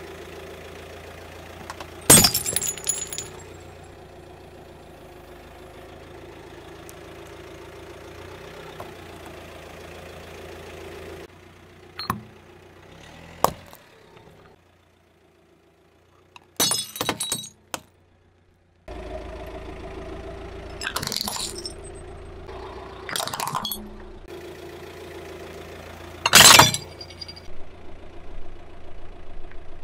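A car tyre rolling onto ceramic cups and crushing them: several sharp cracking and shattering breaks, the loudest near the start and near the end. A steady car engine hum runs underneath and drops out for a few seconds in the middle.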